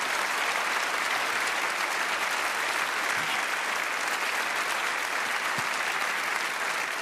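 Large theatre audience applauding steadily, a dense even clapping that holds at the same level throughout.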